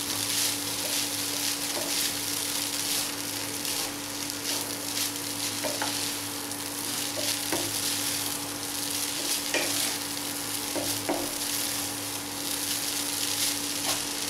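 Tomato rice sizzling in a non-stick kadai as a spatula stirs and turns it, with occasional light knocks of the spatula against the pan. A steady low hum runs underneath.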